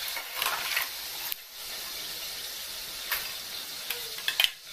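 Hot oil sizzling steadily in a pot of frying french fries, with a few light clicks of a metal skimmer against the pot as the fries are lifted out.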